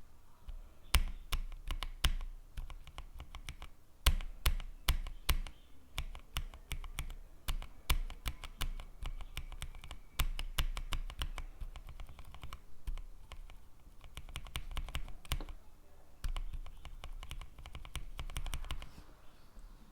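Typing on a mechanical keyboard fitted with Kailh Box linear switches: quick, irregular keystrokes with no tactile click, some strikes landing harder than others.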